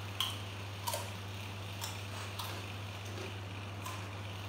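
A handful of small, sharp clicks at irregular intervals over a steady low hum; the first click is the loudest.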